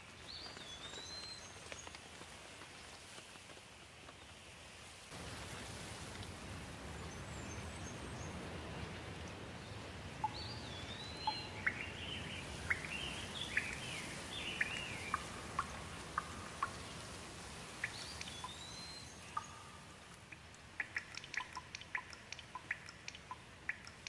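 Steady rainfall, growing fuller and heavier about five seconds in, with birds calling through it. A short whistled phrase that rises and then falls comes three times, near the start, around the middle and about three-quarters through. Between them are clusters of short sharp chirps and ticks.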